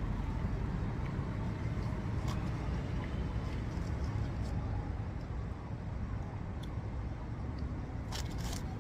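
Steady low rumble of vehicle noise, with a few faint clicks near the end.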